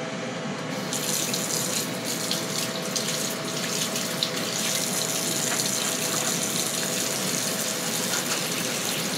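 Kitchen faucet running with water splashing over hands being washed under it; the flow picks up about a second in and then runs steadily.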